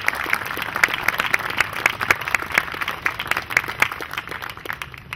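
Audience applauding, a dense patter of hand claps that thins out toward the end.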